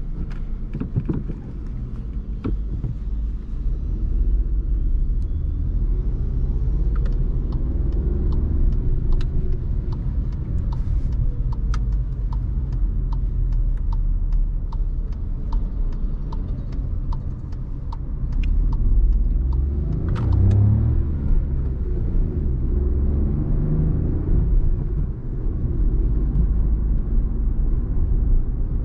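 Cabin sound of a 2019 Volkswagen Polo's 1.0-litre three-cylinder petrol engine under way, with a steady low rumble from engine and road. Twice the engine note rises as the car accelerates, once about a quarter of the way in and again about two-thirds of the way in, with a heavy low thump just before the second pull. A run of evenly spaced clicks goes on for several seconds early on the first pull.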